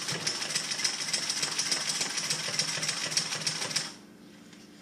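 Consew 206RB walking foot industrial sewing machine stitching at speed through layered webbing, a fast, even run of needle strokes. It stops abruptly about four seconds in, leaving a faint steady hum.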